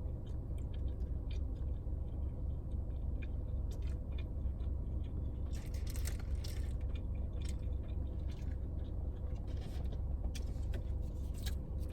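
Close-miked chewing with scattered small clicks, heaviest about halfway through and near the end, over a steady low rumble in a parked car's cabin.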